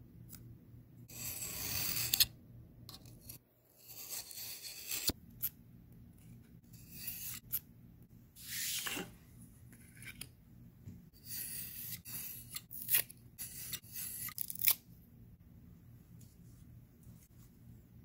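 Foam board being cut by hand on a cutting mat: about half a dozen short rasping strokes with sharp clicks between them.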